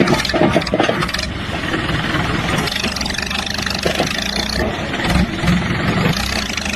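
An engine running loudly, with a few knocks in the first second.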